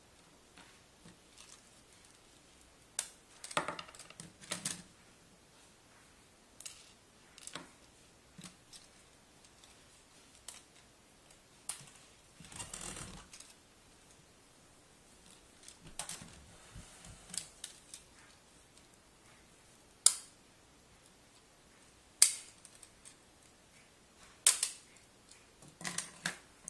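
Toy car parts being handled and pushed together, making scattered irregular clicks and knocks. There are a few sharper snaps in the last third and a brief rustle around the middle.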